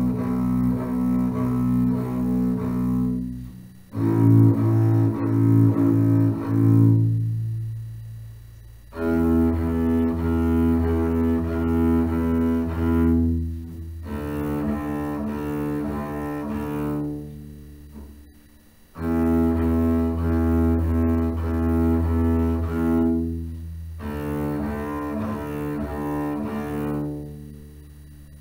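Double bass played with the bow: slow, low, sustained notes in phrases of a few seconds each, with short breaks between phrases.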